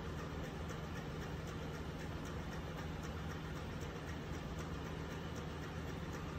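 Steady drone of engine-room machinery, with a constant low hum and a faint regular ticking high up.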